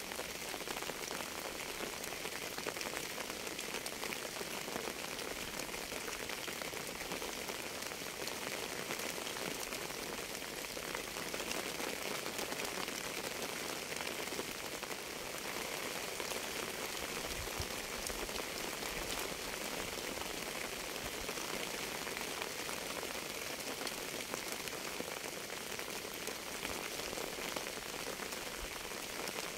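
Steady rain falling on a surface: an even hiss of countless raindrops that neither builds nor fades.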